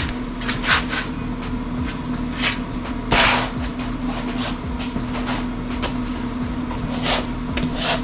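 Scattered knocks and clatters of work in a car-body shop, over a steady low hum. A louder scraping rustle comes about three seconds in.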